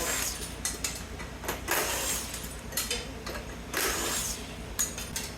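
A handheld power driver running in two short bursts, about half a second each, backing nuts and bolts out of a scrap electrical panel, with metallic clicks of parts and tools in between over a steady low hum.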